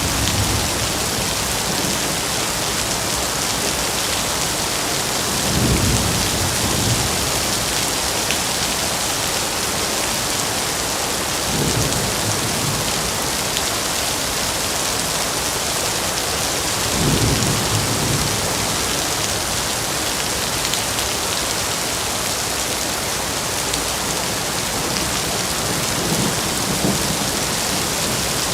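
Steady heavy rain falling on foliage, an even hiss. Brief low rumbles come about every five or six seconds, four in all.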